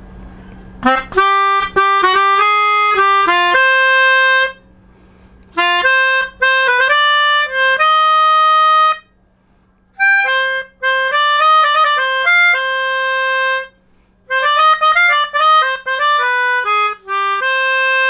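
Mozart 37-key melodica played through its long flexible mouthpiece tube: a single-note melody in four phrases, with short breaks between them.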